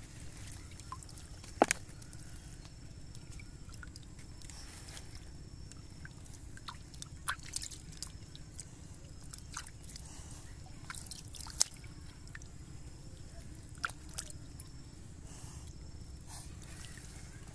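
Hands splashing and scooping in shallow muddy water among wet leaves, with scattered sharp splashes and drips, the loudest about one and a half seconds in.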